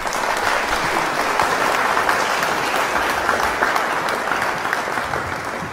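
A crowd applauding: dense, steady clapping that eases off slightly near the end.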